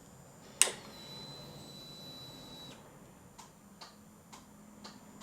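Failed start on a 2002 Harley-Davidson Road King. A sharp click is followed by a faint steady whine for about two seconds, then soft clicks about two a second, with no engine cranking or firing. The owner blames the cold-weakened battery or a bad starter.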